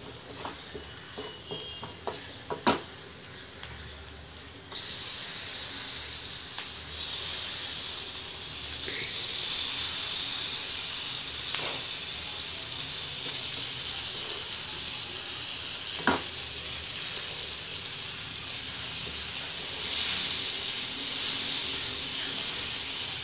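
Sliced onions and boiled egg halves frying in hot oil in a non-stick kadai, a steady sizzle that grows suddenly louder about five seconds in. A few sharp knocks against the pan are heard.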